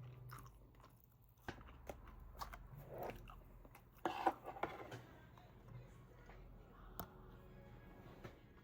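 Close-up eating sounds: biting and chewing food, with scattered small crunches and a louder cluster of them a little past halfway.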